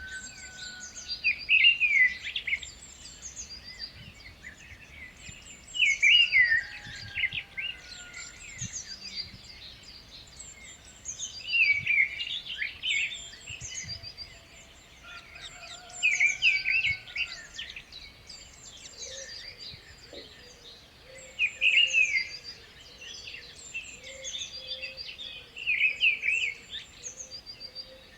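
Parrot calling in six loud bursts of harsh, rasping screeches, about one every five seconds. Between them, high thin chirps repeat over and over.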